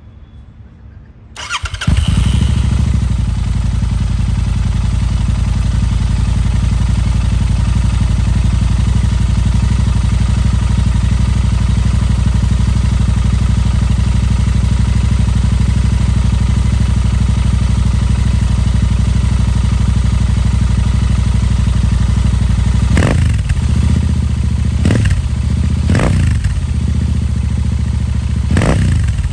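Royal Enfield Interceptor 650's 648 cc parallel-twin engine, running through Powerage aftermarket exhaust pipes with the baffles in, starts up about a second and a half in and idles steadily. Near the end the throttle is blipped four quick times, each rev rising and falling back to idle.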